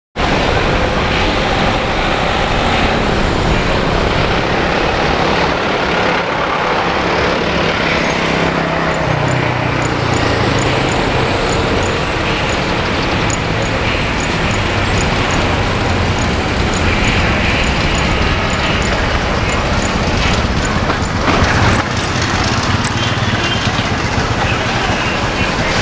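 Steady rumble of road traffic and vehicle engines, with a low hum that grows stronger about a third of the way in.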